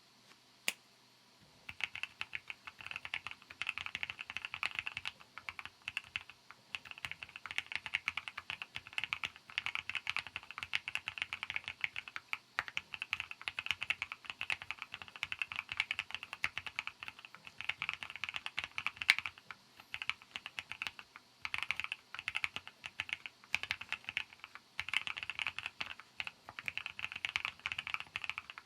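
Sea75 custom mechanical keyboard being typed on fast: a dense, continuous run of keystrokes starting about two seconds in, with a couple of brief pauses, after a single lone key click just under a second in.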